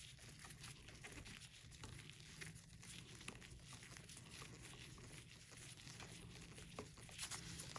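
Faint scattered small clicks and scrapes of a screwdriver turning out a freshly loosened cover screw on a Singer 201K sewing machine, over a steady low hum.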